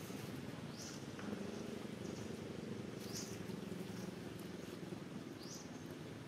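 A short, high, rising chirp repeats three times, evenly about two and a half seconds apart, over a low steady rumble.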